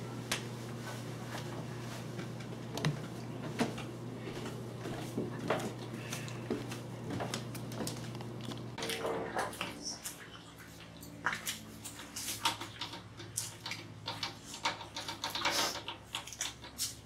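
Quiet room tone with a low steady hum for about the first half, then many light, irregular clicks and taps of objects being handled.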